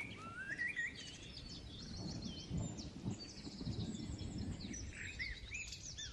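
Rainforest nature ambience: many birds chirping and calling over one another in quick rising and falling whistled notes, over a low rumbling background.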